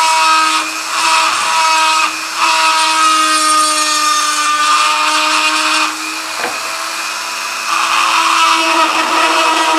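Dremel rotary tool running with a steady high whine, its small bit grinding the hoof of a lead toy cow. The rasp of the grinding comes and goes as the bit touches and lifts off the metal, and it eases off for a couple of seconds past the middle.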